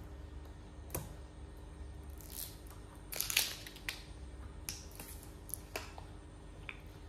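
Handling noise from a plastic water bottle and small plastic containers on a stone tabletop: scattered clicks, crackles and light knocks, with a dense burst of crackling about three seconds in.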